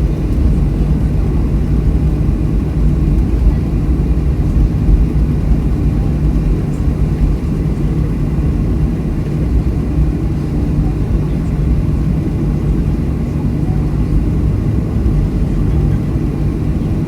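Boeing 737-300's CFM56-3 jet engines heard from inside the cabin as a steady, loud low drone with a constant hum.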